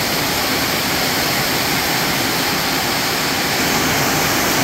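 Heavy rain pouring down: a loud, steady hiss of falling water.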